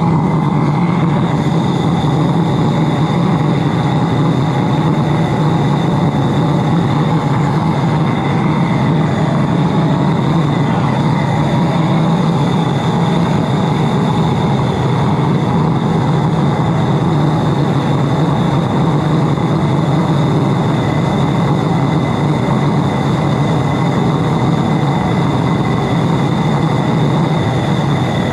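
Little Dragon high-velocity diesel burner firing steadily into a small crucible furnace: a constant deep rushing noise with thin, steady high tones over it.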